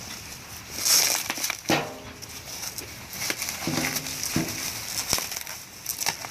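Packing material and plastic wrapping around new exhaust parts being unwrapped by hand, with irregular crinkling and crushing rustles and a few short squeaks.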